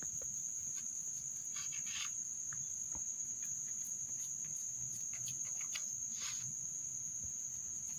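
A steady, high-pitched shrill tone runs throughout, with a few soft scrapes and taps as a knife cuts a slab of semolina kesari on a plastic cutting board.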